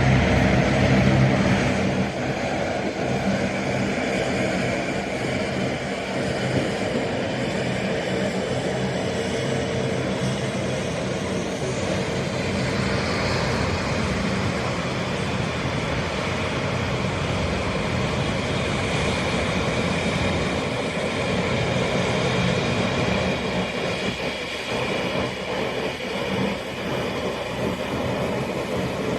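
Jet airliner engines running, a steady loud noise that is strongest in the first two seconds with a low hum, then evens out.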